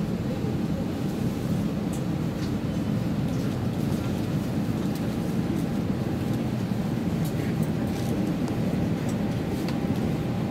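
Steady low hum of an Airbus A320's empty cabin with its air-conditioning running, with faint voices and a few light clicks in the background.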